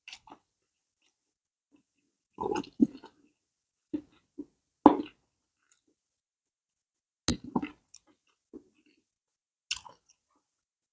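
Close-miked mouth sounds of a person chewing and smacking pounded yam and banga soup, in short separate bursts a second or two apart with quiet between.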